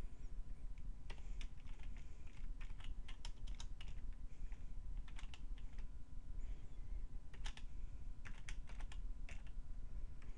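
Computer keyboard being typed on, short irregular bursts of key clicks with pauses between them, over a steady low hum.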